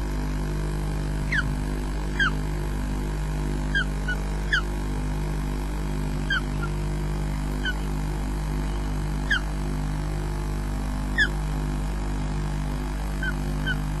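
Ospreys at the nest giving short, sharp, downward-slurred whistled calls, about a dozen at irregular intervals, some in quick pairs. A steady low hum runs underneath.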